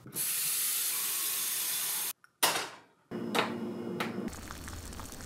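Kitchen faucet opened and running water for about two seconds, then cut off abruptly. A sharp clink and a short metallic ringing follow, then a click from the electric stove's control knob being turned and a low steady hum.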